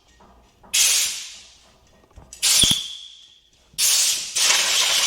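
Compressed-air blow gun giving three sharp hissing blasts, each fading away, with the last one longer. It is blowing chips out of freshly tapped threads.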